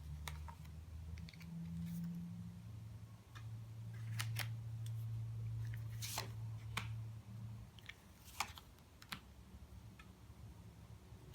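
Tarot cards being handled: scattered light clicks and snaps of card stock, about eight of them, over a faint low hum.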